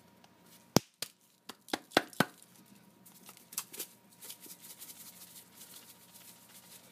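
Seasoning container clicking and knocking over a cooking pot as herb sea salt is added to the food: a few sharp knocks in the first two and a half seconds, then a run of faint, quick ticks.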